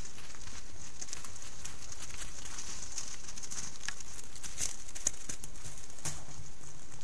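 Wolves' paws crunching and shuffling in snow right beside a trail camera, a scatter of irregular soft crunches and scuffs over the camera microphone's steady high hiss.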